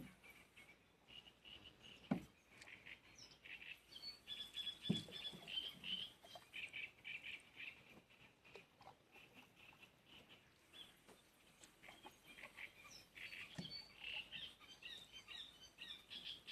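Small birds chirping faintly in quick, high, repeated notes throughout. A few sharp low knocks are scattered among them, the loudest about two and five seconds in.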